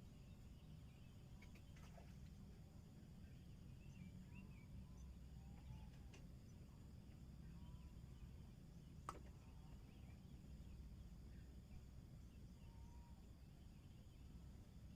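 Near silence: a low outdoor rumble with a few faint, short chirps, and a sharp click about nine seconds in.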